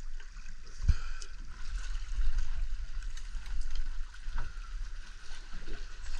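Water sloshing against a fibreglass boat's hull over a low, uneven rumble, with a single sharp knock about a second in.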